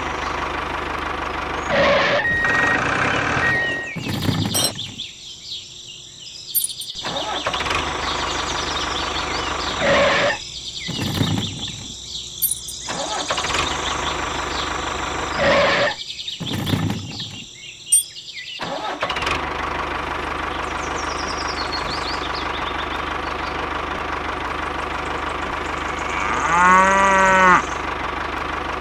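Tractor engine sound running steadily, cutting out and starting up again three times. Near the end a loud call with a swooping, wavering pitch, like an animal cry, rises over it.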